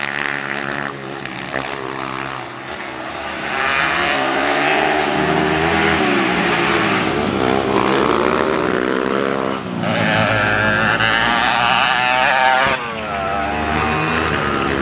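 Dirt bike engine revving hard, its pitch climbing and dropping again and again. It is quieter for the first few seconds, then louder from about four seconds in.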